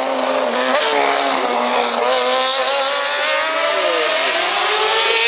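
Hill-climb race car's engine under hard acceleration, its pitch climbing and dropping back at gear changes, about a second in and again around four seconds in.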